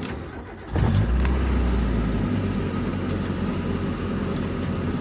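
Mazda Miata four-cylinder engine starting from cold, with a key jingle in the ignition. It catches about a second in, is briefly louder and lower, then settles into a steady idle on freshly fitted lifter buckets.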